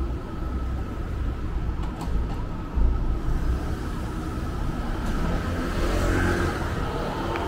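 Street ambience: a steady low rumble of car traffic, with a faint steady high tone and a sharp knock a little before three seconds in.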